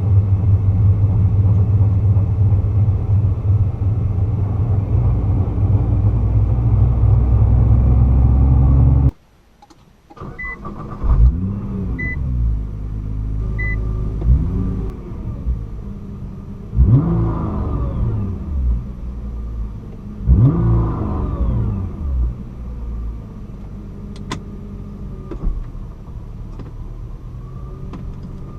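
Cabin sound of a 2009 Nissan GT-R's twin-turbo V6 and drivetrain. It starts with a steady drone while cruising. After a break, the engine revs rise and fall about four times, a few seconds apart, as the throttle goes on and off at low speed. This on-off driving is where the owner hears a shuddering noise on lift-off engine braking, which he links to his recent bell housing and driveshaft replacement.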